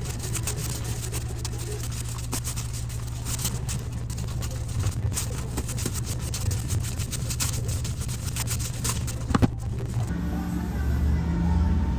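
Steady low rumble of a vehicle on the move, with scattered light clicks and a sharper click about nine and a half seconds in, under background music.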